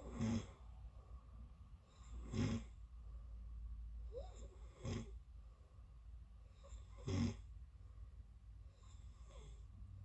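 A person snoring in deep sleep: four loud snores, one roughly every two and a half seconds, with fainter breaths between them.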